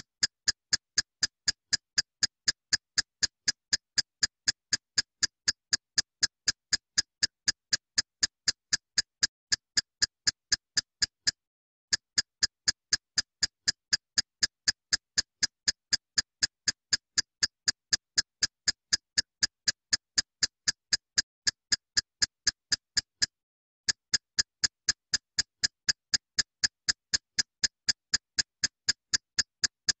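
Clock ticking sound effect: sharp, even ticks at roughly two a second, breaking off for a moment twice, about twelve seconds apart.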